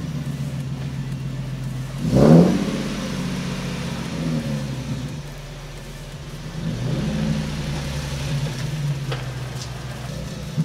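Nissan 370Z's 3.7-litre V6 running at low speed, with a quick rev about two seconds in and smaller throttle swells later as the car is moved forward and backed up onto blocks.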